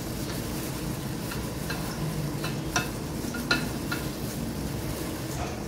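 A plastic bag rustling and crinkling as flour is shaken out of it into a bowl, with a few sharp crackles near the middle, over a steady low background rumble.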